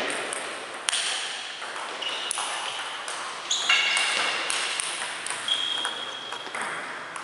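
Table tennis balls clicking off paddles and bouncing on the tables in a rally, in an echoing sports hall. A few brief high squeaks are mixed in.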